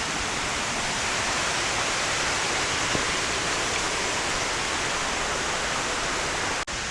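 Waterfall water rushing, a steady, even roar of falling and cascading water. It cuts out for an instant near the end.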